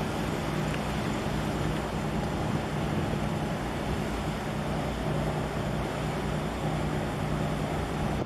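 Steady low hum of a large container ship passing close by, over an even rush of wind and water.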